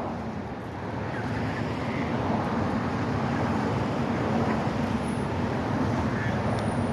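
Steady low rumble of motor-vehicle noise, slowly growing louder.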